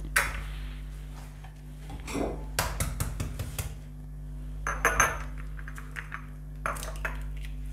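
Sharp taps and clicks of eggs being cracked against a saucepan and their shells handled, with a cluster of quick clicks near the middle.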